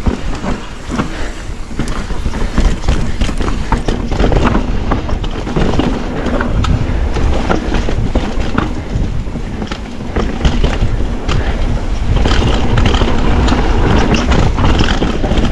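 Mountain bike riding down a rough, rocky trail: tyres running over stones and gravel with frequent knocks and rattles from the bike, and wind rumbling on the microphone.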